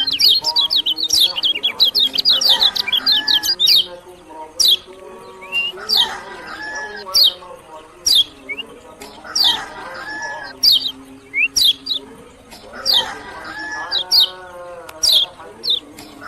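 Kecial kuning songbird singing: a fast run of high chirps at the start, then short, sharp, high notes sweeping downward about once a second. Lower calls that repeat every few seconds sit underneath.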